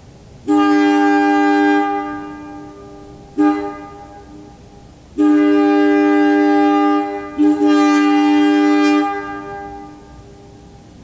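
Wabco AA-2 two-chime air train horn being blown, sounding a steady two-note chord. There is a blast of about a second and a half, a short toot, then a long blast of nearly four seconds with a brief break partway through.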